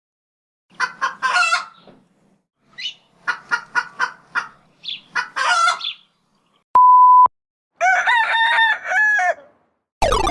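Chicken sound effect: three bursts of quick clucking, followed about 7 s in by a short, loud 1 kHz censor beep, then a pitched call in four arching notes. A falling glide begins right at the end.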